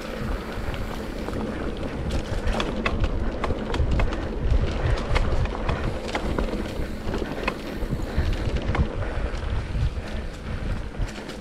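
Mountain bike riding down a dry dirt trail: wind buffeting the action camera's microphone and tyres rumbling over the ground, with frequent sharp clicks and knocks from the bike as it goes over bumps.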